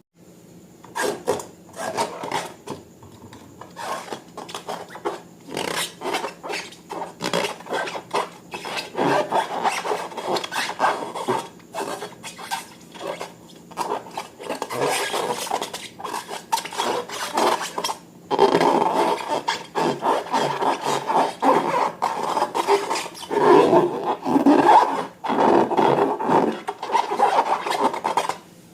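Slime being squished and worked by hand: a dense, irregular run of sticky clicks, pops and crackles, heavier in several stretches.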